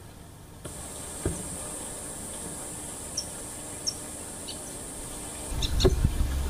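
Outdoor ambience of insects making a steady high-pitched drone that starts about half a second in, with a few short bird chirps. Near the end, louder low rumbling with a couple of knocks.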